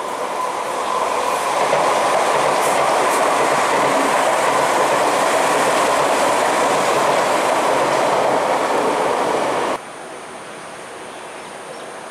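Electric metro train running past on elevated track: a steady rumble of wheels on the rails that builds over the first two seconds and holds, with a faint squeal. About ten seconds in it cuts off abruptly to a quieter, distant train sound.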